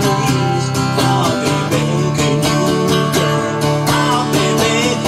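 A country band playing a song, led by a strummed acoustic guitar with a steady rhythm under sustained melody notes.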